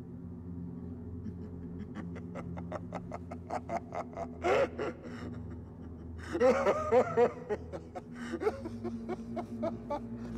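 A man laughing: a rapid chuckle of short pulses, about six a second, builds into a loud open-mouthed laugh about six seconds in, then breaks into shorter laughs, over a low steady drone.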